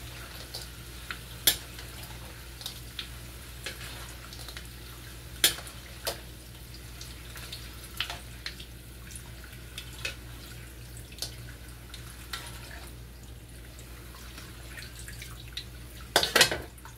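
Metal skimmer scraping and knocking against a steel wok as fried potato cubes are scooped out of the oil: scattered clicks and taps, the loudest few close together near the end, over a faint frying hiss and a steady low hum.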